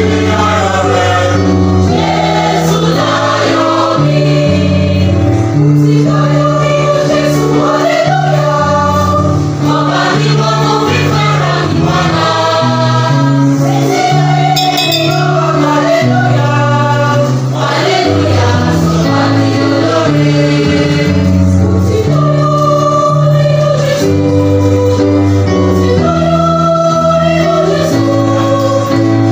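A large school choir singing, with held chords changing every second or so.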